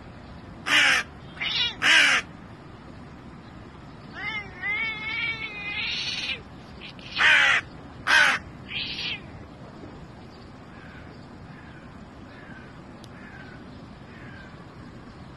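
Hooded crow cawing: three loud harsh caws, then a drawn-out wavering call, then three more caws.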